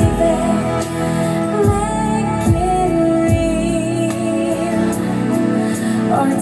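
A song with a vocal and a steady kick-drum beat, about one hit every 0.8 seconds, played through JBL MK10 passive loudspeakers driven by an AD MC1000 power amplifier.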